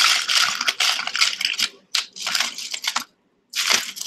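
Costume jewelry clinking and rattling as hands rummage through a box of metal bangles, chains and wooden bead bracelets: dense runs of small clicks, with a brief pause about three seconds in before more clatter.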